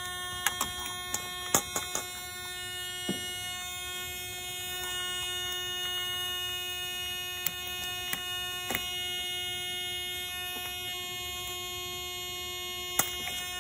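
Scattered small clicks and knocks from a truck door lock cylinder being fitted and worked by hand, most of them in the first few seconds, over a steady electrical hum with several high fixed tones.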